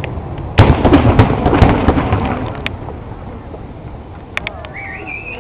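Fireworks finale bursting: a sharp bang about half a second in, several more over the next second, then the rumbling echo dies away.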